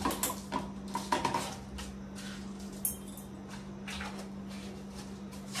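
Kitchen utensils clinking and knocking against a steel bowl and a small plastic mixer-grinder jar as chopped tomatoes are put in and the lid is fitted on. A quick cluster of knocks comes in the first second and a half, then a single sharp click near the middle and a few softer knocks later.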